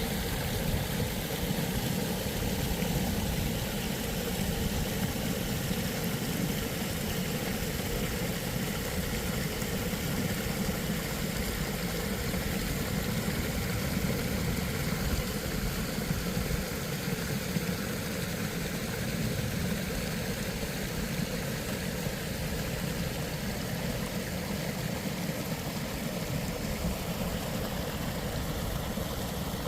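Steady outdoor ambience: a continuous low rumble with a hiss over it, no distinct events.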